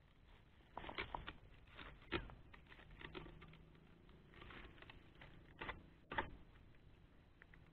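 Faint scattered rustles and about half a dozen light knocks from a worker handling young oil palm fronds and a dodos harvesting pole at the base of the palm.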